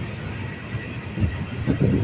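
A train rolling past, a steady low rumble with irregular clatter of wheels on the rails.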